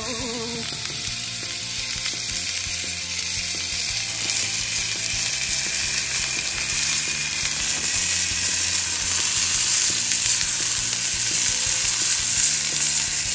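Food sizzling on a hot plancha griddle: a steady frying hiss that grows gradually louder.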